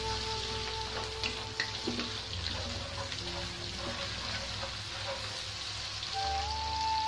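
Sliced onions and green chillies sizzling in hot oil in a wok, stirred with a wooden spatula that scrapes the pan a few times in the first couple of seconds. Soft background music with long held notes plays under it.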